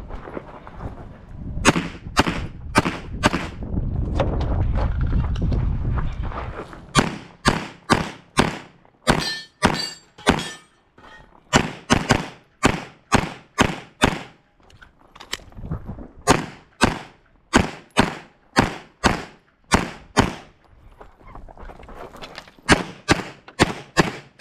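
Rapid 9mm pistol fire from a Glock 34: strings of sharp shots, often in quick pairs, broken by short pauses. There is a stretch of low rumbling between the first strings, a few seconds in.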